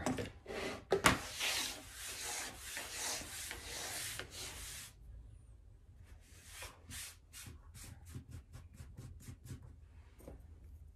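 Loose plastic sequins being scraped together by hand across a tabletop, then a run of small quick ticks as they are gathered up.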